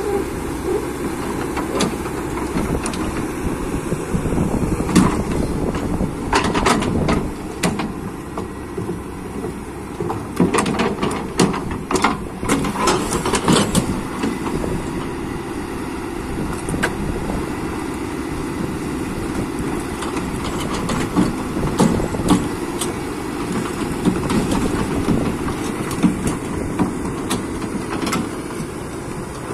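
Hydraulic excavator's diesel engine running steadily, with bursts of sharp knocks from the machine working in the middle of the stretch and again later on.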